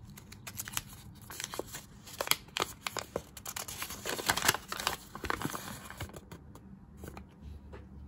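Thin paper instruction leaflet rustling and crinkling as it is pulled out of a small cardboard box and unfolded by hand: a dense run of crisp crackles, loudest a little past the middle, dying away over the last couple of seconds.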